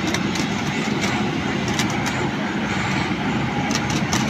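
Hydraulic rail machine working on a rail joint, throwing sparks, with steady loud machine noise. A few sharp crackles come near the end.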